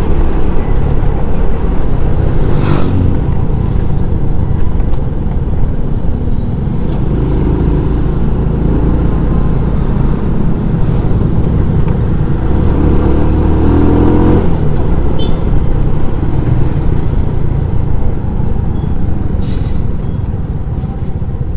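SYM Bonus 110 motorcycle's small single-cylinder four-stroke engine running under way, its note rising briefly about two-thirds of the way through, with steady wind and road noise.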